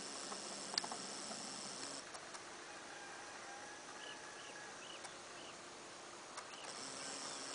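Insects droning steadily at a high pitch, stopping about two seconds in and starting again near the end, with a few short high chirps in between.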